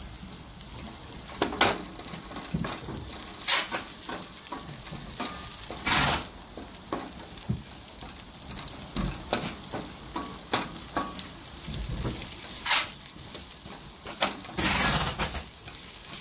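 Chopped garlic sizzling in oil in a stainless steel pot while it sautés toward light brown, stirred with a wooden spatula that scrapes across the pot several times, the longest stroke near the end.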